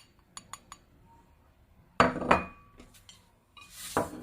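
Ceramic painting dishes and brush clinking as painting materials are handled: a few light clicks, then two sharp clinks with a brief ring about two seconds in, and a rustle with another knock near the end.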